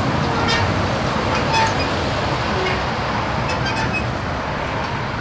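Steady low rumble of road traffic, with a few faint short squeaks over it.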